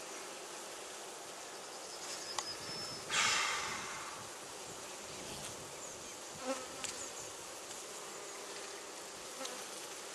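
Steady buzzing of a large mass of honeybees at an open hive, with a short scraping rasp about three seconds in and a few light knocks as wooden top bars are pushed into place.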